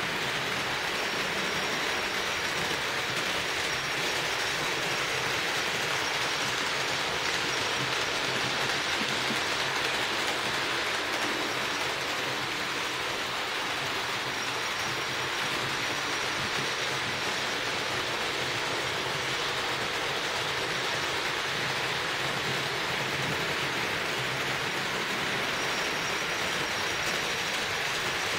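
HO-scale Roco model trains running on the layout's track: a steady rushing, rolling noise of small wheels on metal rails with the locomotives' motors whirring, with no breaks.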